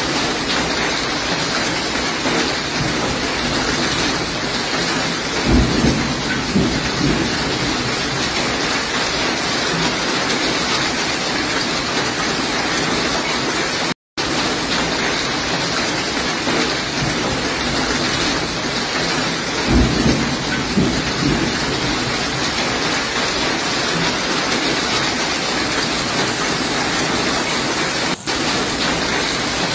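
Heavy rain and hail pouring onto paving as a steady hiss, with a short low rumble about five seconds in and again near twenty seconds. The sound breaks off briefly about halfway.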